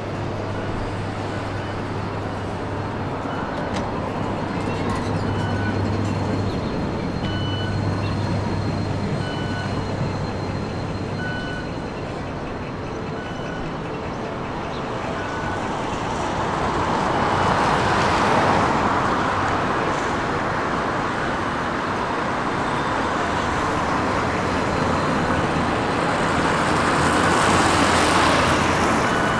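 City street traffic: a steady low engine hum with vehicles passing close by, swelling about halfway through and again near the end. Faint short beeps repeat every second or two.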